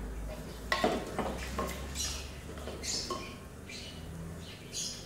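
Butter melting in hot oil in a non-stick kadai, sizzling with irregular small crackles and pops, over a low hum that fades about three seconds in.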